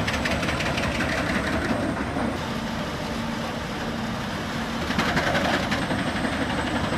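A running engine or machine, a steady dense mechanical noise that drops a little in the middle and comes back louder about five seconds in.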